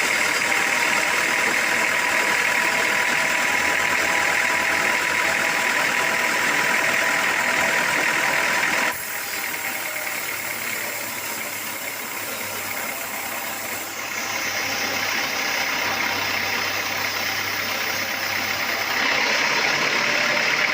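Sawmill machinery running steadily with an engine-like drone. It drops abruptly and gets quieter about nine seconds in, then comes back up in two steps near the end.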